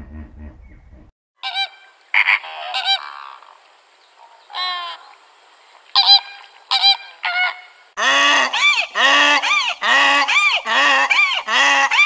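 A flock of flamingos honking in scattered short calls. About eight seconds in, a much louder, rhythmic run of honking calls takes over, about two a second.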